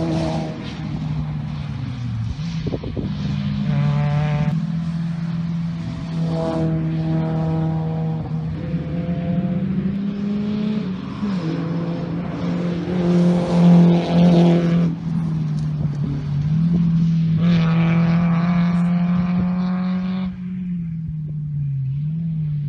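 Rally car engines revving hard as the cars drive through a stage, with several bursts of high revs and gear changes and a steady low engine drone underneath. The loudest burst comes about two-thirds of the way through.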